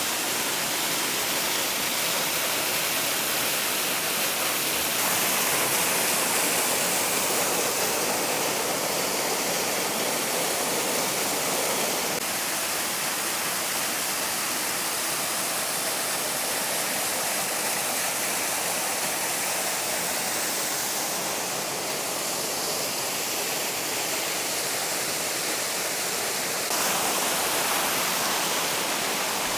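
Waterfall pouring over a cliff into a rocky pool: a steady, loud rush of falling water.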